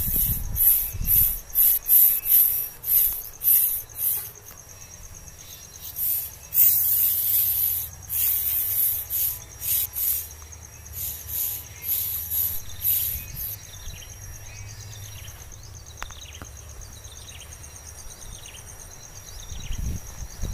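Insects chirping in repeated very high bursts, about one or two a second for the first dozen seconds, over a thin steady high buzz. A few short falling bird chirps come in the second half.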